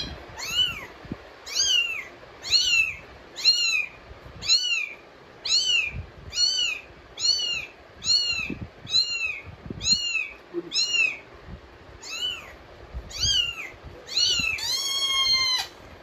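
Recorded cat meows played back as a test: a quick, evenly repeated series of short, high meows, each rising and falling, one or two a second. It ends in one longer, drawn-out meow near the end.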